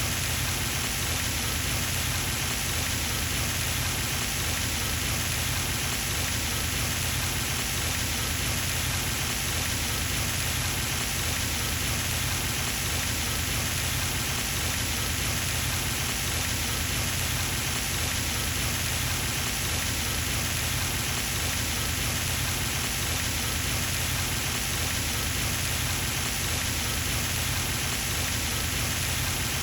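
Pond fountain's water jet splashing down onto the pond surface, a steady, unbroken rushing patter.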